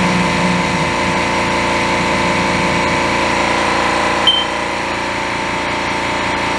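Steady machine hum of a Haas OM-2 CNC mill standing idle with its spindle not cutting. A short high beep sounds about four seconds in.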